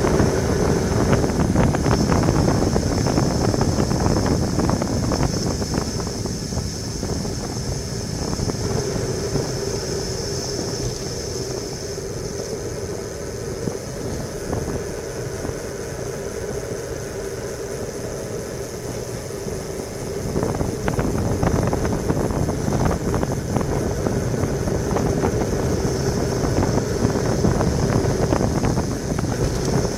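Wind rushing over the microphone, with road and tyre rumble from a bicycle coasting fast downhill on asphalt and a steady hum under it. It eases somewhat in the middle and picks up again about two-thirds of the way in.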